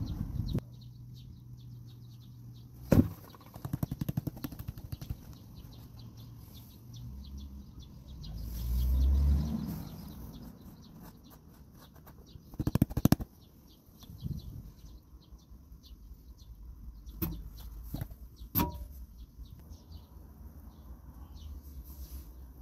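Water swishing in a plastic gold pan as fingers work through the concentrates, with a few sharp knocks and taps on the plastic and a run of rapid clicks about halfway through. Small birds chirp throughout.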